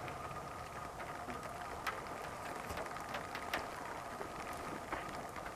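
Faint outdoor ambience: a steady low hiss with a faint steady high tone and scattered light ticks and crackles.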